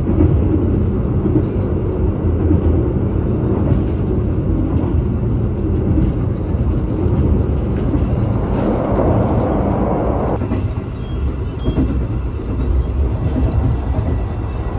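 Passenger train running along the track, heard from on board as a steady low rumble. A louder rushing noise swells about eight and a half seconds in and cuts off sharply about two seconds later.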